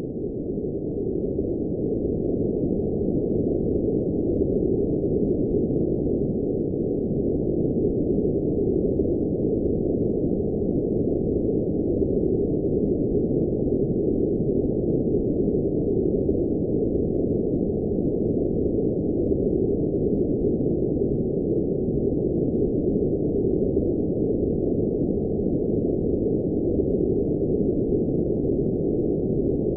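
Steady electronically generated noise, labelled blue noise, but with all its sound in the low and middle range and no treble, so it is heard as a dull, even rush. It swells up over the first second or two, then holds level.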